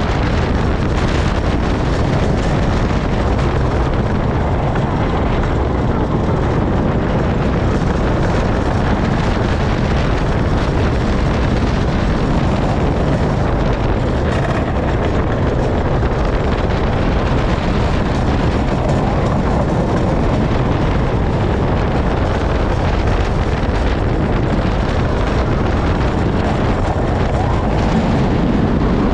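Wooden roller coaster train running along its wooden track at speed: a steady rumble of the wheels on the track under heavy wind buffeting on the microphone.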